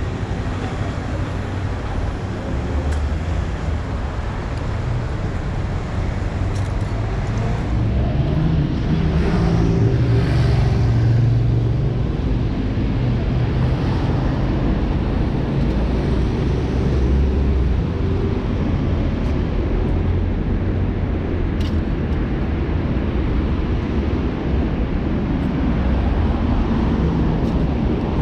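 City street traffic with cars passing. A vehicle engine grows louder and passes about ten seconds in.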